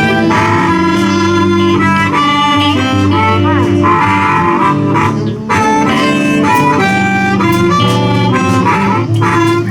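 Live blues band playing a boogie shuffle, a blues harmonica leading with bent, wavering notes over electric guitars, bass and drums.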